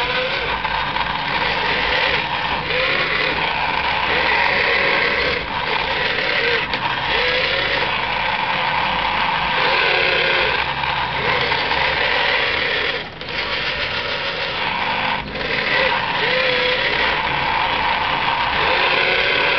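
Electric motors of a radio-controlled toy wheeled excavator whining as the boom, arm and bucket move, in repeated bursts about a second long that rise and fall in pitch over a steady mechanical hum.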